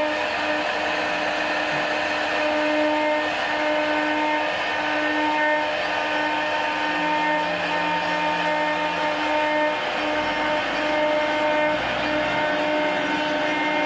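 CNC machine running: a steady motor whine with a constant hiss of noise beneath it.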